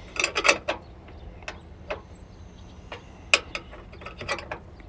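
Irregular metal clicks and clinks of a wrench working a bolt and of hand tools being handled: a quick cluster in the first second, then single clicks every second or so.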